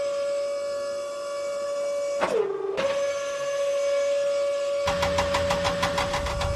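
Small electric motor whining at a steady high pitch; a little after two seconds in its pitch sags briefly as if loaded, then recovers. About five seconds in, a low chugging engine-like rumble with rapid, even clicks joins it.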